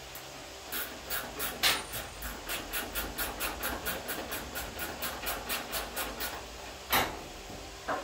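Rapid rasping strokes of a hand tool working on the car, about five a second for some five seconds, then a sharp knock about seven seconds in and a lighter one at the very end.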